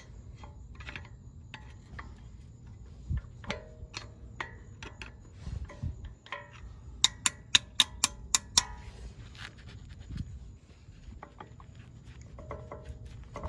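Metal clicks and knocks from a new brake pad being worked into a caliper against a rotor that keeps shifting, with a quick run of about seven sharp clicks about halfway through.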